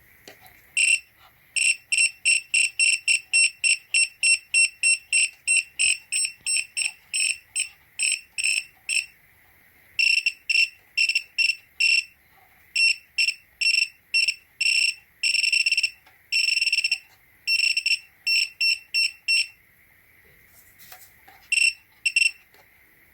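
Bench power supply's buzzer beeping with each click as its encoder adjustment knob is turned and pressed: runs of short high beeps, about three a second, broken by pauses, with a couple of longer beeps, over a faint steady high whine.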